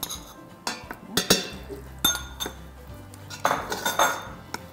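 A bowl and a plastic rice paddle clinking against an Instant Pot's stainless steel inner pot, several short ringing clinks. About three and a half seconds in comes a scraping rustle as the paddle stirs the dressing into the cooked rice.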